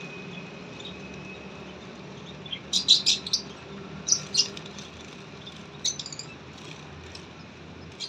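Young sparrow chirping in short bursts of quick, high calls: a burst about three seconds in, another just after four seconds and a last one near six seconds.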